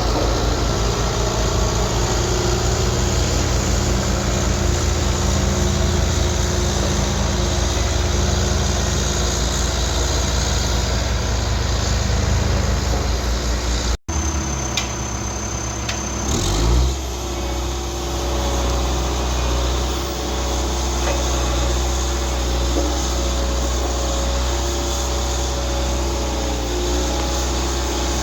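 Diesel engine of a vibratory road roller running steadily while compacting the road base, with a fast, even low pulsing in the first half. The sound breaks off abruptly about halfway through and an engine runs steadily again shortly after.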